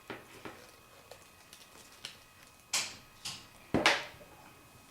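A few short sharp clicks and knocks, the loudest one a little under a second before the end.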